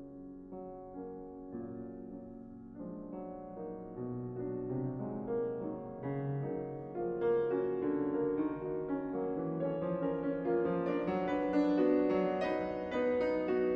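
Solo piano playing classical music, swelling louder and fuller from about four seconds in, with higher notes joining the chords in the second half.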